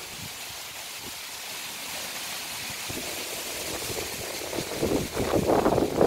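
Strong, gusty wind tossing coconut palm fronds and tree foliage, a steady rushing hiss with low buffeting rumbles of wind on the microphone. A stronger gust swells about five seconds in.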